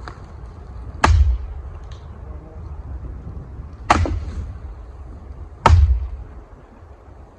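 Three sharp, heavy knocks about two seconds apart as firewood is handled, over a low wind rumble.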